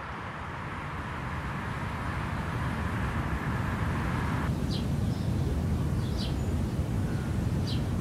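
Outdoor town ambience: a low rumble that grows steadily louder, with a higher hiss that cuts off suddenly about halfway. After the cut come three short, high, falling bird chirps a second or so apart.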